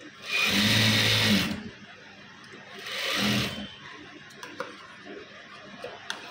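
Industrial single-needle sewing machine stitching in two short runs: a longer one just after the start and a shorter one about three seconds in, each a rapid needle clatter over a steady motor hum. A few faint clicks follow near the end.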